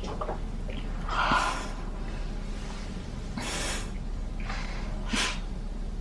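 A woman sipping from a mug and breathing through her nose: four short breathy puffs, the loudest about a second in and a sharp one near the end.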